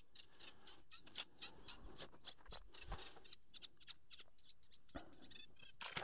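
Small birds chirping in quick, irregular high notes; just before the end a caught fish drops into a bucket of water and splashes loudly.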